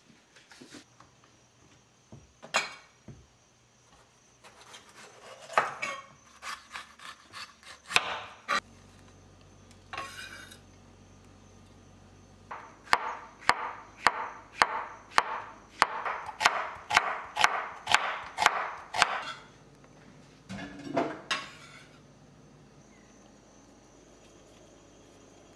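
Kitchen knife chopping on a wooden cutting board: a few scattered knocks and taps, then a run of even chopping strokes, about two or three a second, for around six seconds.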